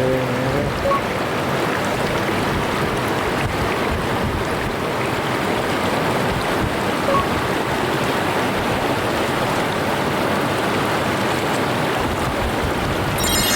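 Mountain stream flowing: a steady, even rush of water. A brief high ringing sound cuts in at the very end.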